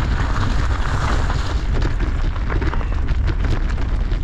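Heavy wind rumble on the microphone while riding a bicycle, with a steady crackle of tyres rolling over gravel.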